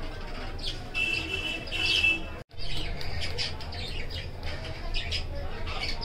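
Budgerigar chick chirping and squawking, with one held call of steady pitch lasting about a second; the sound cuts out for an instant midway.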